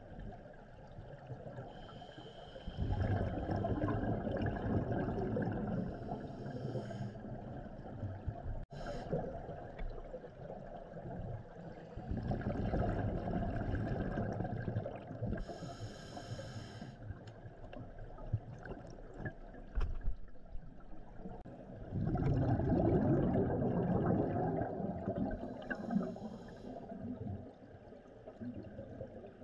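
Scuba diver breathing through a regulator underwater: three long exhalations of rushing, gurgling bubbles about nine seconds apart, each followed by a short high hiss from the regulator.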